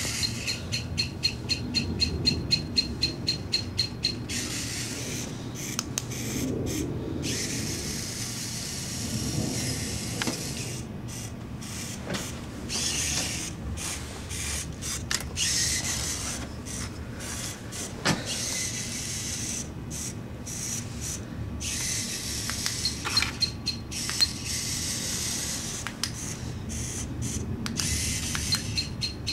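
Boebot's piezo beeper sounding a fast run of short high beeps, its signal that the photoresistor sees bright light. After about four seconds the beeps stop, and small electric motors and gears whir in stop-start bursts as the robot and the toy RC car drive. The beeping returns briefly near the end.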